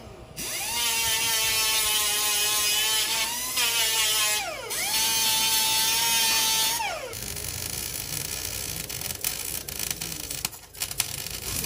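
Pneumatic grinder with a small sanding disc running on steel at a steady high whine, dipping briefly and spinning back up, then winding down about seven seconds in. After it, a welding arc crackles with fast, irregular clicks.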